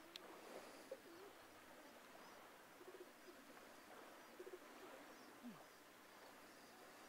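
Near silence: faint outdoor hush with a few soft, low bird calls scattered through it, one of them falling in pitch, and a brief high chirp at the very start.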